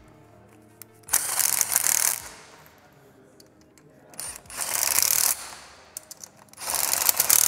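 A powered machine or tool on an electric-motor assembly line, running in three bursts of about a second each with quieter gaps between.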